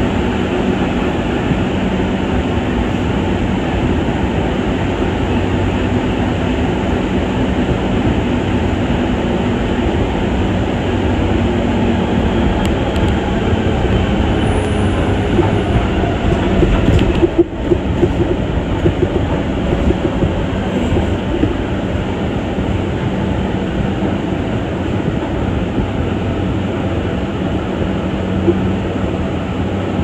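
Mexico City Metro Line 2 rubber-tyred train running, a steady rolling noise with a low hum, briefly dropping out for a moment a little past halfway.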